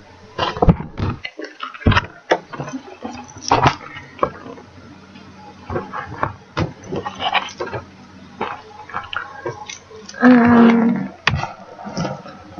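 Paper rustling with irregular taps and clicks as a cross-stitch chart booklet is handled, tilted and set down. A brief vocal sound near the end is the loudest moment.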